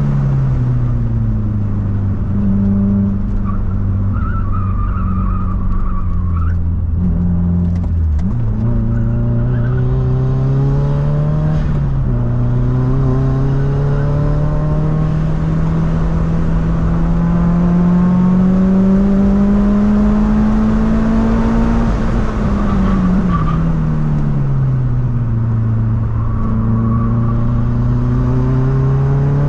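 2005 Subaru Forester XT's turbocharged flat-four engine driven hard, its revs climbing slowly and then dropping several times. Tyres squeal briefly a few seconds in.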